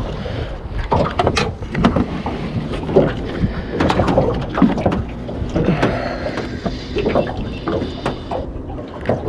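Irregular knocks and clunks on a small fishing boat over a steady low rumble, as a squid caught on a jig is brought in.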